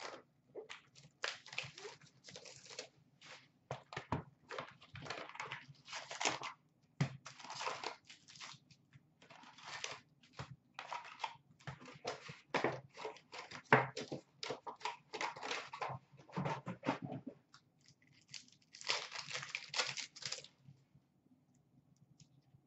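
Hockey card packs from a box of 2015-16 Upper Deck Series 2 being torn open by hand, the wrappers ripping and crinkling in a long run of irregular bursts. The bursts stop a couple of seconds before the end.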